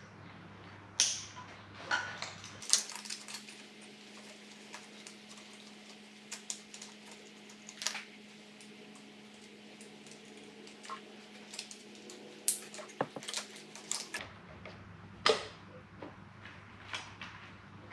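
Irregular light metallic clicks and clinks of a spanner and bolt hardware as earth wires are fastened on an engine, over a faint steady hum.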